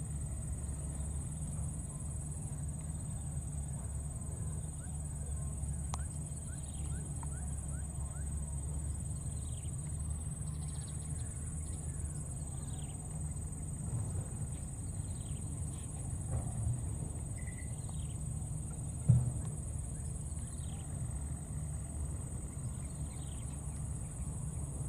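Outdoor ambience with a steady high insect drone, faint short falling chirps now and then, and a low rumble underneath. A single sharp knock stands out about 19 seconds in.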